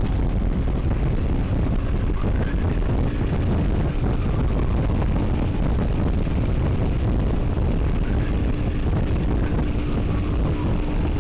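Steady wind rush over the microphone, with engine and road noise from a motor scooter riding along.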